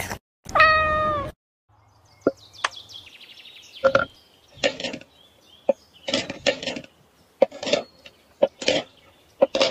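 A cat meows once, the call dipping in pitch at the end. Then a knife chops through a bar of chocolate on a wooden cutting board, with sharp chops at an uneven pace of roughly one to two a second.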